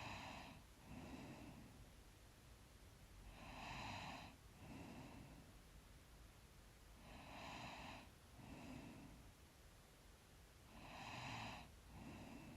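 Faint, slow sleep breathing of a sleeping person, in a regular rhythm of about one breath cycle every three to four seconds: each a louder, slightly snoring breath followed about a second later by a softer one.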